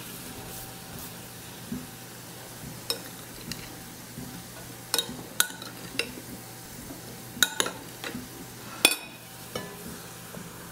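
Sliced onions and cumin seeds frying in hot oil in a stainless steel skillet: a steady sizzle with a sharp pop or crackle about every second, as the cumin seeds toast.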